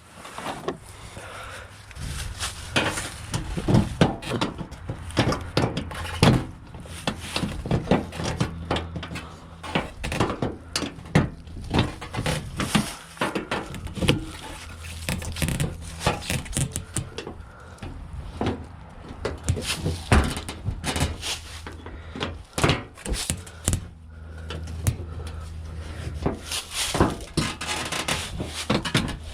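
Irregular clicks, knocks and rubbing of hand tools working on the van's snapped-in plastic front-end trim, over a steady low hum.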